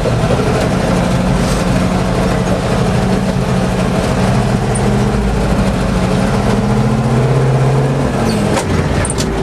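Soviet military all-terrain truck's engine running under load as it climbs a rough dirt track, heard from inside the cab, the engine sounding as if it has no proper exhaust. The engine note rises slightly, then drops away about eight seconds in, with a few sharp rattles near the end.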